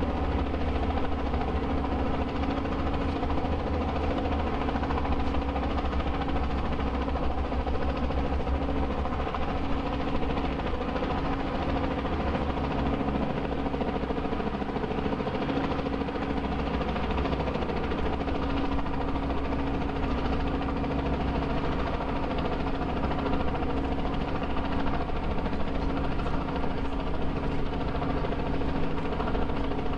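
An engine running steadily: a constant, unvarying drone with a held hum.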